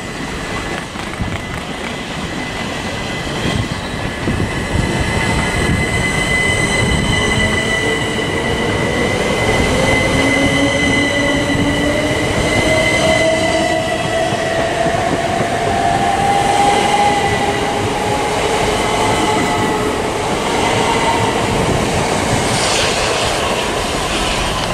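Southern Class 377 Electrostar electric multiple unit pulling out and accelerating away, its traction motors giving a whine that rises steadily in pitch, over the running noise of the wheels on the track as the carriages pass.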